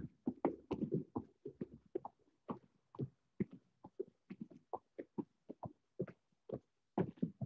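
Feet of two people doing jumping jacks landing on gym floor mats: a faint, quick patter of thuds, about four a second and slightly uneven, because the two jump out of step.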